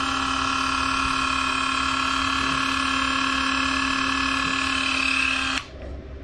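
Small cordless rotary tool with a cut-off wheel, running at high speed with a steady whine as it is used to trim a big toenail, then switched off suddenly about five and a half seconds in.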